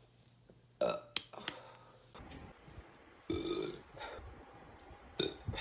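A woman burping: three loud, pitched burps, about a second in, midway and near the end, with a couple of sharp clicks between the first two.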